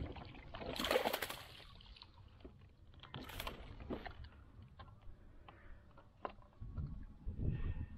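A landing net holding a snook is lifted out of the water into a plastic kayak: a loud splash about a second in, another a couple of seconds later, then light knocks as the net and fish are handled in the boat.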